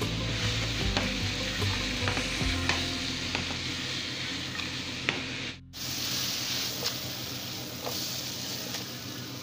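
Shredded chicken breast and sliced red onion sizzling in oil in a pan as they are stirred, with scattered light scrapes and taps of the utensil against the pan. The sound cuts out for a moment just past halfway.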